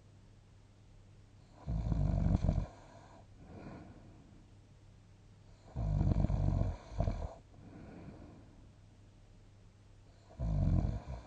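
A sleeping person snoring: three loud, low snores about four seconds apart, with soft breathing between them.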